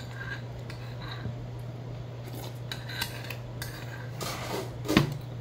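Metal spoon scraping and clinking around the inside of a heavy black bowl as the last of the food is scraped out, in short irregular strokes, with one louder clack about five seconds in.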